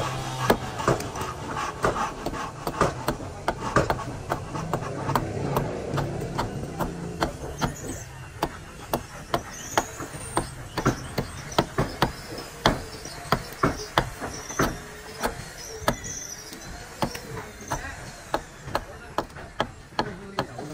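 Hand tools striking timber in sharp, irregular knocks, about two or three a second, as in hand-building a wooden ship. A low hum sits underneath and fades out about a third of the way in.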